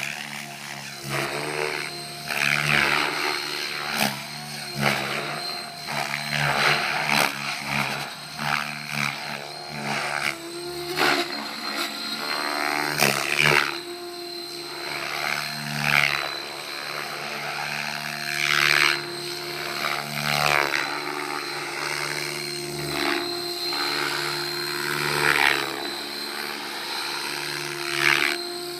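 Electric Align T-Rex 700E Pro DFC RC helicopter in flight: the rotor blades whoosh in repeated loud swells every second or two, over a steady high whine.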